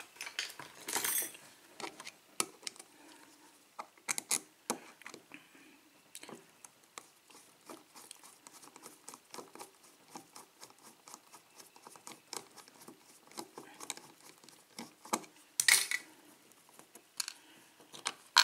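Small metallic clicks and taps as a Schlage pin-tumbler lock cylinder is taken apart by hand, tools and lock parts clinking against each other, with a couple of louder clacks about a second in and near the end.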